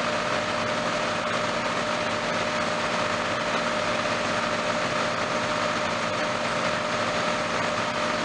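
John Deere 4450 tractor's six-cylinder diesel running steadily at working throttle, heard from inside the cab, driving a forage wagon's unloading floor and beaters through the PTO. A steady whine sits over the engine note.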